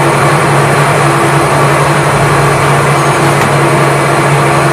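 Metal lathe running with a steady, loud, low hum, with no cutting or knocks.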